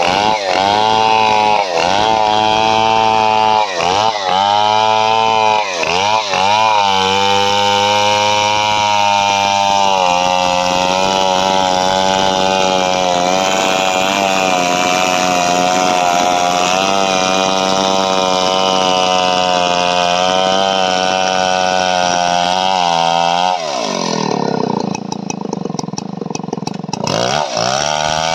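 Stihl 070 two-stroke chainsaw ripping lengthwise along a coconut palm trunk. The engine dips in pitch under load and recovers several times in the first seconds, then runs steady in the cut. Near the end the throttle is let off and it falls to a lower idle for a few seconds before revving back up.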